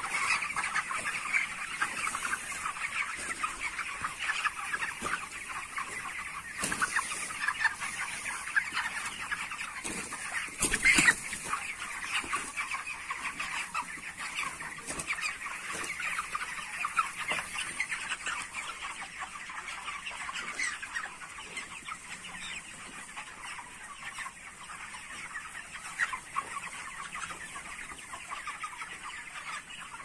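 A large flock of 29-day-old broiler chickens calling continuously, a dense overlapping chatter of clucks and peeps. A brief louder thump about eleven seconds in.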